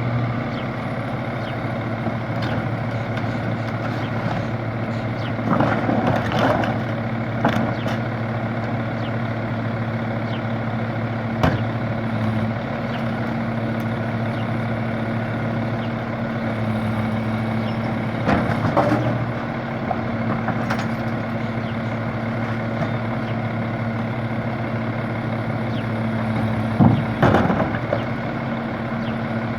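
A garbage truck's engine running steadily, with several clanks and thumps scattered through, the loudest near the end.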